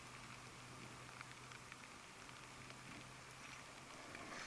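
Near silence: faint steady hiss with a low hum and a few faint ticks.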